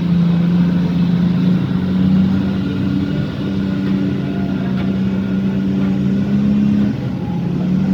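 Large diesel engine of a mining haul truck running steadily, its pitch stepping up slightly about two seconds in and dropping back near the end.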